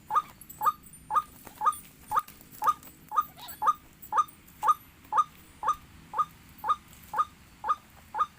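White-breasted waterhen (ruak-ruak) giving its monotonous 'wak' call: one short note about every half second, repeated very evenly.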